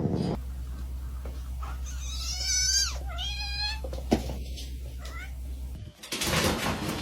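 A cat meowing twice, each call falling in pitch, over a low steady hum. A sharp click follows, and a burst of noise comes near the end.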